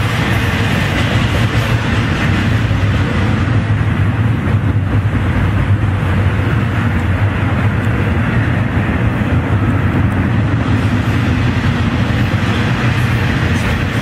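Double-stack container cars of a long freight train rolling past close by, a steady, loud rumble of wheels on rail.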